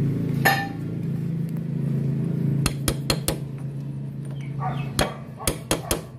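Sharp metal clinks and taps as a steel socket is fitted over the drive sprocket and shaft nut of a small engine, in two quick clusters. A steady low hum runs underneath and stops a little after four seconds in.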